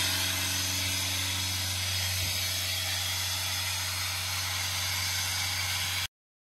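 Doosan 7/41 towable air compressor's four-cylinder Yanmar diesel running steadily, a low hum under an even rushing hiss. The sound cuts off abruptly about six seconds in.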